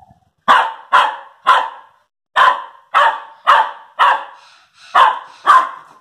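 Young terrier barking at another dog in play: nine short barks in three quick runs, about two a second.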